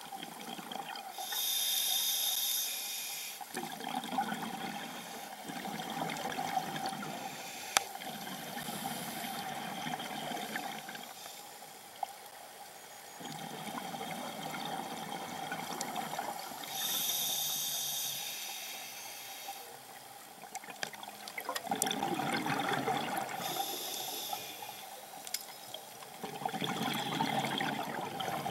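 A scuba diver breathing through an open-circuit regulator, heard underwater: hissing inhalations alternate every few seconds with gurgling surges of exhaled bubbles.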